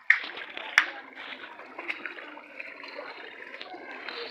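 Floodwater rushing, a steady noisy wash, with two sharp knocks within the first second.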